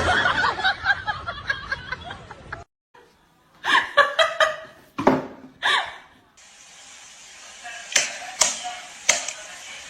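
Voices making short bending calls or speech, then, after an abrupt change in background, four sharp smacks a little under a second apart.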